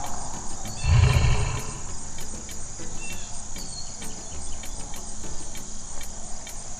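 A white tiger's short, low growl about a second in, over a steady high-pitched chirring of insects.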